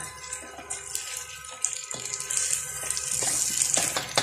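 Chicken wings, carrot and onion sizzling in a wok as they are stir-fried with a spatula; the hissing sizzle grows louder from about halfway through.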